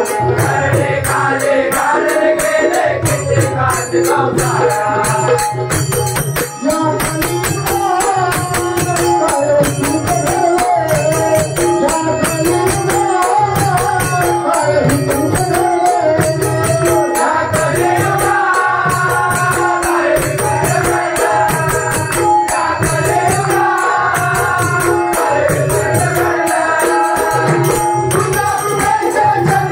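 Marathi devotional bhajan: singing a winding melody over a steady beat of small jingling percussion and a low drum.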